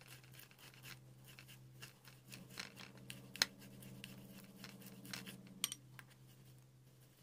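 Boiled potato rubbed against a small handheld stainless-steel grater: faint, repeated scraping strokes, with a sharper click about three and a half seconds in.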